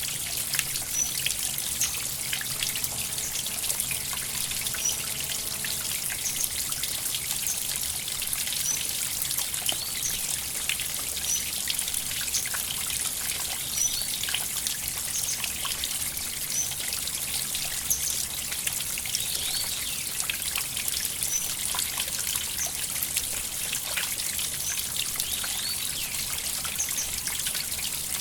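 River water flowing and trickling, a steady splashy hiss full of small splashes. A faint short high chirp repeats every couple of seconds.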